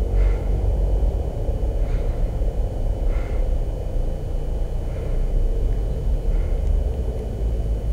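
Low, steady rumbling drone, with faint short high tones recurring every second or two.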